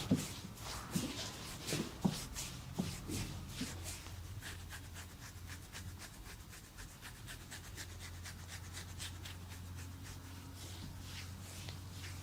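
Hands massaging at close range: a quick run of soft scratchy rubbing strokes over skin and hair, with a few low pats in the first few seconds.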